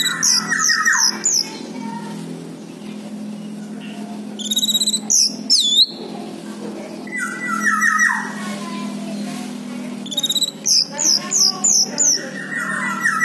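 Orange-headed thrush song: four bursts of quick, high whistled notes, some sliding down in pitch, a few seconds apart, over a steady low hum.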